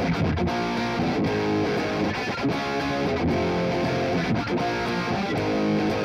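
Electric guitar played through Antelope Synergy Core amp and cabinet emulations with a gate, giving a distorted sound. Chords and riffs change every second or so, with short, sharply cut breaks between them.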